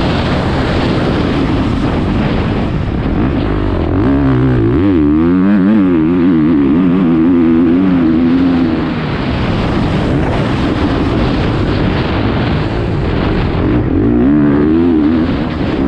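Motocross bike engine revving hard under riding load. The pitch swings quickly up and down with the throttle about four seconds in and again near the end.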